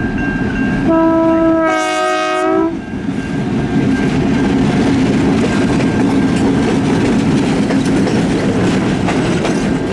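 CN diesel freight locomotives passing close by: one horn blast of about two seconds near the start, then the steady rumble of the engines and the wheels on the rails.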